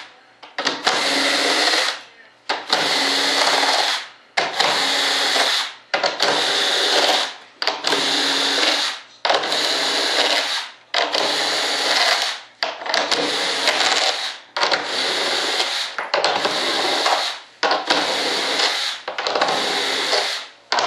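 Cordless drill/driver running in a string of about a dozen short spurts, each a little over a second with brief pauses between, as it backs out the screws holding the wing mold halves together one after another.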